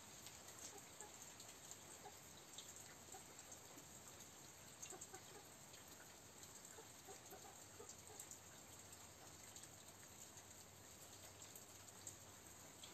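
Near silence: room tone with a few faint short sounds scattered through it.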